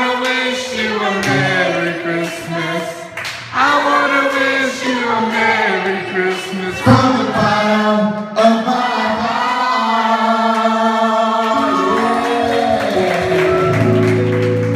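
A man singing into a microphone through a PA system, in phrases with long held notes.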